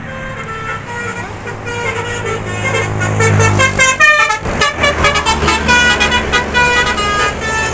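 Bus 'telolet' multi-tone musical horn playing runs of stepped, tune-like notes over the low rumble of the bus engine, with a quick falling run of notes about four seconds in.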